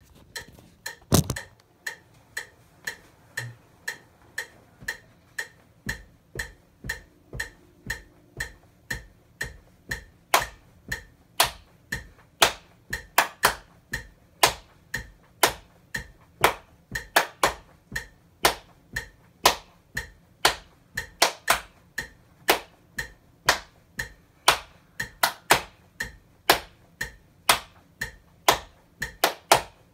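A metronome clicking steadily about twice a second, joined about ten seconds in by louder hand claps in an accented, syncopated pattern: a cymbal part practised on the hands. A single knock comes about a second in.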